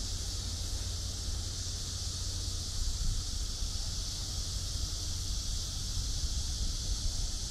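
Outdoor ambience: wind buffeting the microphone in a low steady rumble, with a steady high-pitched hiss over it.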